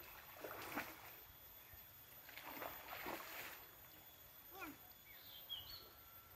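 Faint stream-side ambience: a few soft water splashes from a small child wading and moving a stick in shallow water, with a brief faint high call a little past the middle and thin high chirps near the end.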